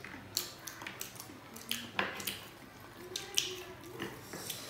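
Two people eating chow mein noodles with chopsticks: irregular wet slurps, lip smacks and chewing clicks, a few every second.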